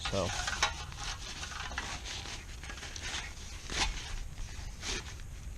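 Handling noise from a small camp stove and its gear: irregular scraping and rustling, with a few sharp clicks, the loudest near the start and about four seconds in.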